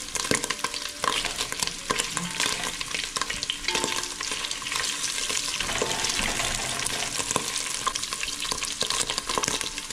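Beef pieces frying in ghee in a metal sufuria, sizzling steadily, while a wooden spoon stirs and scrapes the pot with frequent short clicks.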